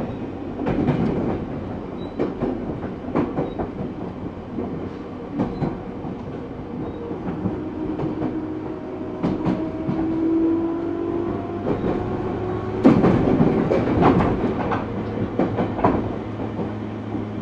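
JR 205-series electric train running, heard from inside the car: a motor tone rising gently in pitch in the middle, with the wheels clacking over rail joints, a burst of louder clacks about two-thirds of the way through.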